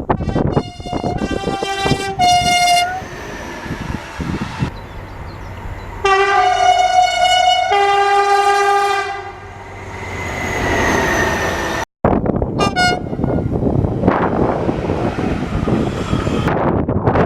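Train horns sounding: a few short blasts, then one long two-note blast. After a cut comes another short blast, then the rumble and clatter of a passing train.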